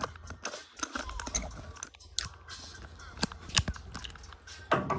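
Irregular clicks, knocks and crunchy handling noises, as something is worked and adjusted by hand.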